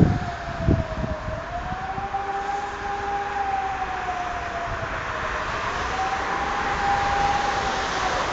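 Civil-defence warning siren wailing during a siren test, its pitch held high and then sagging and rising again about every four seconds. A fainter, lower-pitched siren sounds further off, and wind buffets the microphone near the start.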